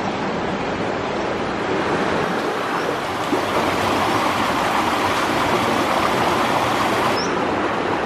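River water rushing over rocks through a narrow channel in a small cascade, a steady rushing noise that gets a little brighter about two seconds in.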